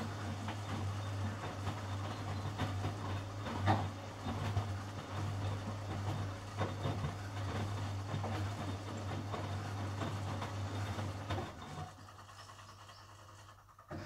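Miele WS 5406 washing machine in the wash phase: the drum tumbles laundry through soapy water with sloshing and irregular knocks over a steady low hum. Near the end it goes quiet for a couple of seconds as the drum pauses.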